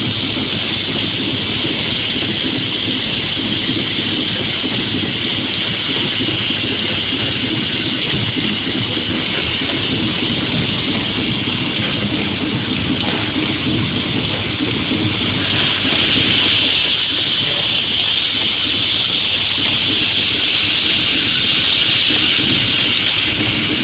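Automatic transformer magnetic-core assembly machine running: a steady, dense rattle and hum from the vibratory bowl feeder shaking cores along its track, together with the assembly stations' motors. It gets slightly louder about sixteen seconds in.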